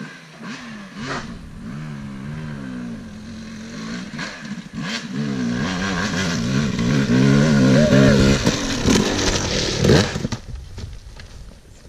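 Yamaha YZ250 two-stroke dirt bike engine revving up and down through the throttle as it approaches, growing steadily louder, then revving hardest as the bike climbs the jump lip about ten seconds in, after which it drops off.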